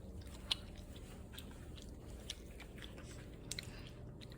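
Faint chewing of bread, with a few soft crunches spread out about a second apart.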